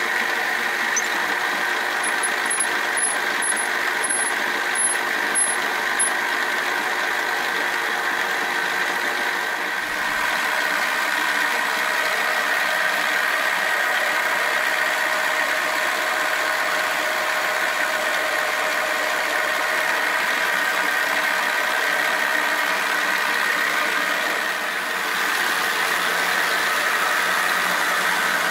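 Milling machine spindle and motor running steadily with a whine of several held tones, while a drill bores into an aluminium block.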